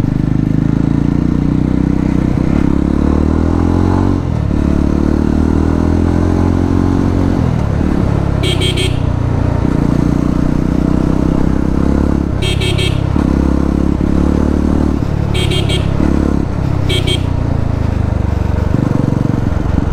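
Exhaust of a 2024 Jawa 350's single-cylinder engine running with its dB killer removed, heard from the saddle while riding. The revs climb and fall back several times. Several short high-pitched signals cut in around the middle.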